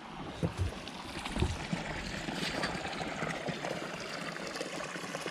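Water running and trickling steadily, with a few soft thumps in the first second and a half.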